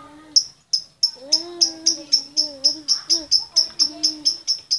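A lovebird gives sharp, high, repeated chirps that speed up to about five a second: a female calling for the male. Underneath, quieter, runs a low wavering tone held for a second or more at a time.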